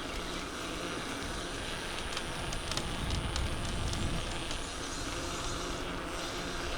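A steady low hum of a distant engine under even outdoor background noise, with a few light clicks.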